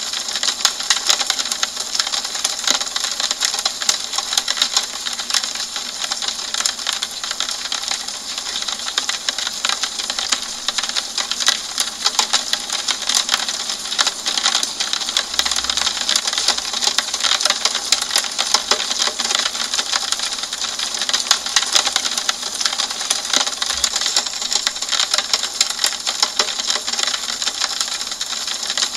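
Steady rain falling on a window, a dense, even patter of many small drop taps with no let-up.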